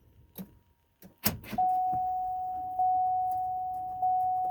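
A few sharp clicks about a second in, then an electronic chime sounding one steady tone that repeats about every 1.2 seconds, each stroke fading before the next, as the vehicle responds after the door controller programming.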